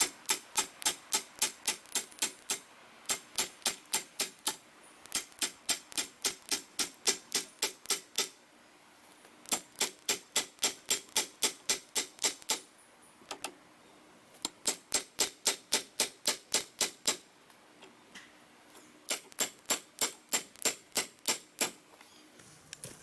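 Steel T-post being pounded into the ground: rapid ringing metal-on-metal strikes, about four a second, in six runs of a few seconds each with short pauses between.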